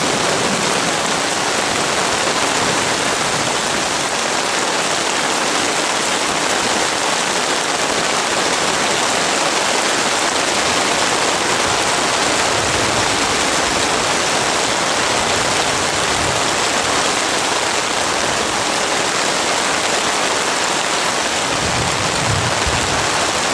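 Heavy rain pouring steadily onto a lake and its grassy shore during a thunderstorm, an even hiss of rainfall, with a few brief low rumbles under it, most noticeable near the end.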